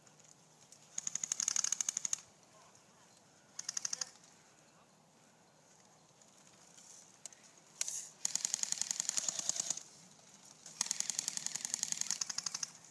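Airsoft guns firing on full auto: four rapid rattling bursts, a short one near the start, a very short one about four seconds in, and two longer ones of about a second and a half to two seconds in the second half.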